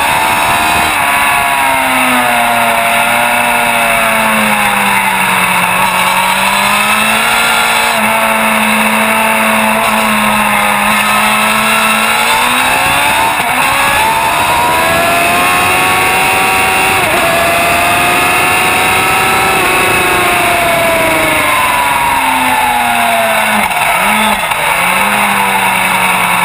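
Sport motorcycle engine heard onboard at racing speed, its pitch rising as the rider accelerates and falling as he eases off into corners, over steady wind noise. Near the end the pitch dips sharply a few times in quick succession.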